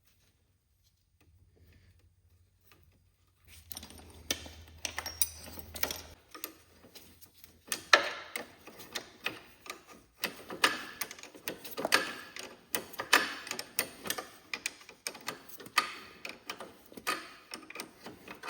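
Hand tools and metal parts clicking and clanking irregularly during work on a Cub Cadet garden tractor's shifter and transmission linkage. The clicking starts about three and a half seconds in, after near silence.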